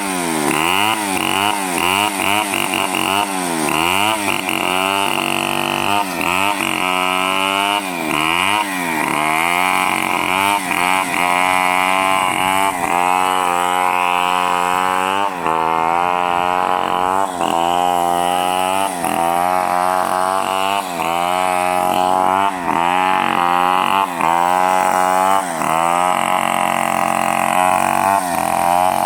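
Two-stroke chainsaw running under load, its engine speed repeatedly dipping and climbing back up as it cuts through wood.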